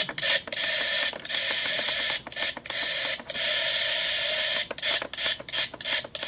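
Small toy alarm clock radio's speaker hissing with static between FM stations, broken every fraction of a second by clicks and brief dropouts as the tuning is stepped up the dial.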